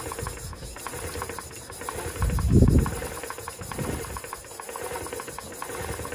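New, freshly oiled cylinder on a CG motorcycle engine being worked back and forth by hand over the piston and rings to bed them in, giving a rapid, even run of metallic clicks. A heavier low thud comes about two and a half seconds in.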